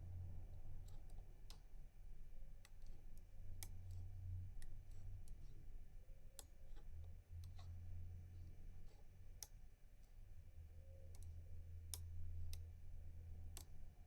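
Faint, sparse and irregular sharp clicks of a rotor pick working the pins inside a six-pin FAC pin-tumbler lock as it is being picked open, over a low hum.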